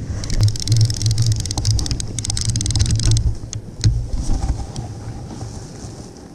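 Conventional fishing reel being cranked hard to bring up a hooked rock cod: a fast clicking whir over a low rumble, stopping about three seconds in, followed by a few scattered clicks.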